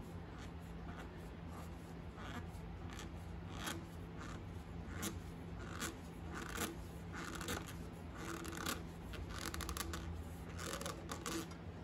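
Mechanic's glove rubbing and scraping on a spin-on oil filter's can as the filter is hand-tightened about three-quarters of a turn past seated, a run of faint, irregular scrapes over a steady low hum.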